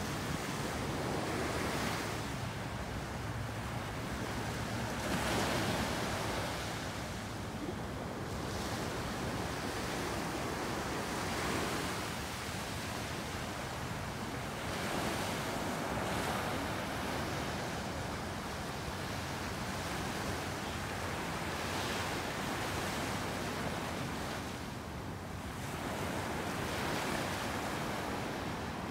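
Small waves breaking and washing up a sandy beach, swelling every few seconds, with wind rumbling on the microphone.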